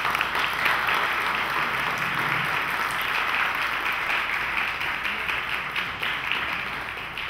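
Audience applauding: many people clapping together, beginning sharply as the talk ends and gradually dying down toward the end.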